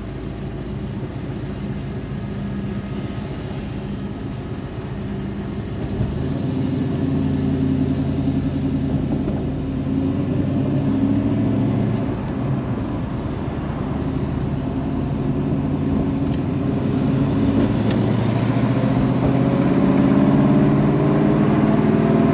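A 1973 Plymouth 'Cuda's engine and exhaust, heard from inside the cabin while driving. The engine note steps up about six seconds in, then climbs in pitch and gets louder near the end as the car accelerates.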